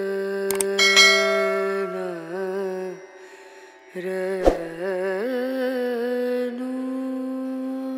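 Background music: a voice singing long, held notes that slide and waver between pitches, with a short break about three seconds in.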